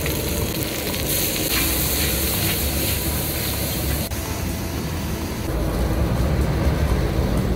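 Stir-frying mie Aceh in a large wok over a wok burner: a steady low burner rumble under constant sizzling, with a few scrapes of the metal spatula on the wok.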